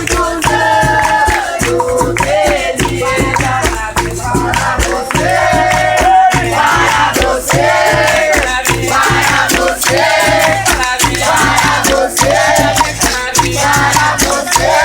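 Capoeira roda music: berimbau with its caxixi shaker rattling, group singing and hand-clapping in a steady beat.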